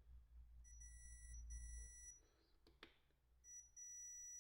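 Digital multimeter's continuity beeper giving a faint, high, steady beep: two beeps in the first half with a short gap between them, a single click, then a brief blip and a longer beep near the end. The beep signals continuity, meaning the grinder cable's conductor between the probes is unbroken.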